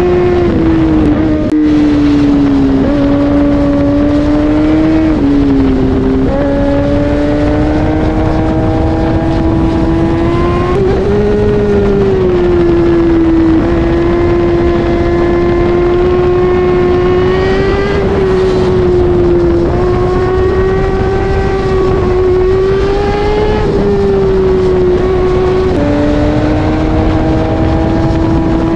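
Kawasaki Ninja ZX-10R inline-four engine running under way. Its pitch climbs slowly, then drops suddenly several times as it shifts up through the gears.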